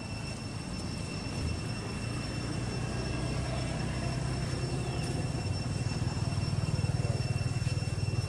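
Low engine rumble from a distant motor, growing steadily louder and loudest near the end, with a faint steady high-pitched whine running alongside.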